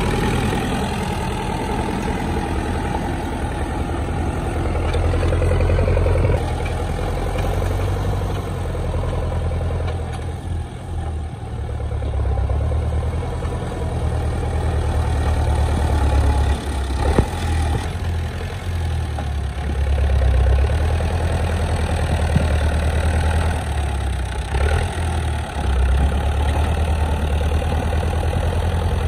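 Farm tractor engine running under load while the tractor drags a blade through loose soil, its low drone swelling and dipping as it works, with one sharp clack partway through.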